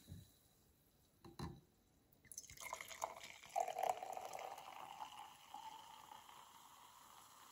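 Sparkling apple wine (Apfelsecco) poured from a bottle into a glass champagne flute, starting a little over two seconds in after a light knock. The stream splashes and fizzes, its tone rising slowly as the glass fills.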